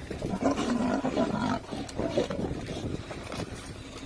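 Lion snarling and growling in a few short, rough calls while fighting off a charging blue wildebeest. The longest call comes about half a second in and lasts about a second, with a shorter one near the middle.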